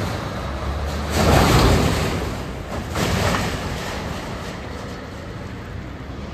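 Diesel truck-and-trailer engine rumbling as it pulls away, with a loud rush of noise about a second in and a smaller one about three seconds in.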